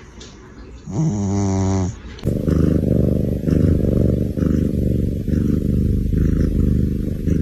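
Sleeping cat snoring: a drawn-out buzzing snore, then from about two seconds in a continuous low rattling rumble.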